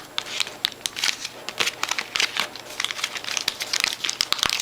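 Polaroid 600 film package crinkling with many irregular crackles as it is handled and pulled open by hand.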